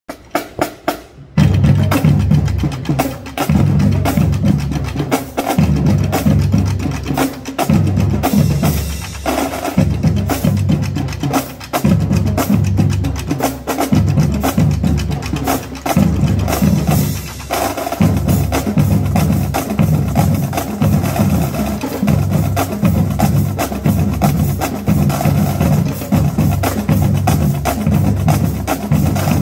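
Marching drum line playing a cadence on snare drums, bass drums and tenor drums, with cymbals. It opens with a few sharp stick clicks before the full line comes in about a second in, and there is a short break just past halfway.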